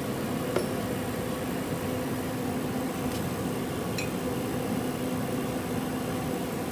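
A steady droning hum, with three faint metallic clinks of tools and engine parts being handled during assembly.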